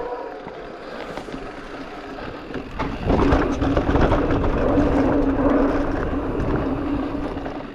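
E-mountain bike rolling on a dirt trail: tyre and wind rush that grows louder about three seconds in, with a steady motor hum underneath.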